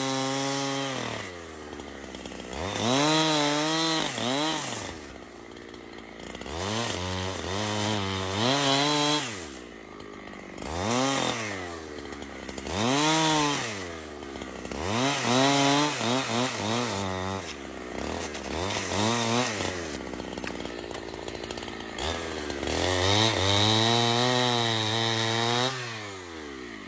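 Chainsaw engine revving up and dropping back to idle over and over, about eight times, as during a felling cut.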